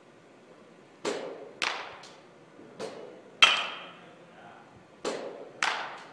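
About seven sharp knocks and cracks of baseballs being hit and caught around an indoor training facility, irregularly spaced over about five seconds, each with a short echo; the loudest, midway, rings briefly with a metallic tone.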